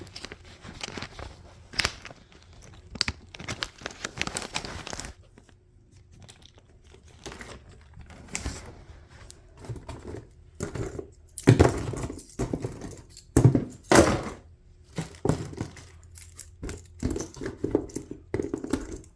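Small plastic parts of poultry drinker-line standpipes being handled and sorted into bins: a run of irregular clicks, knocks and rustling, with the loudest knocks a little past the middle.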